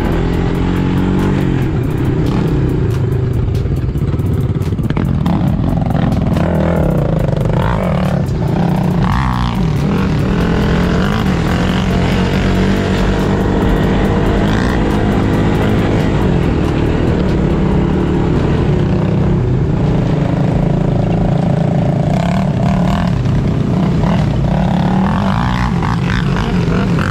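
A vehicle engine running steadily.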